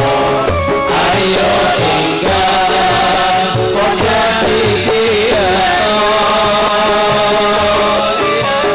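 An Islamic devotional song (sholawat) sung live by male singers into microphones, backed by drums, a cymbal and a keyboard, all through a loudspeaker sound system. The singing has long held, sliding notes over a steady drum beat.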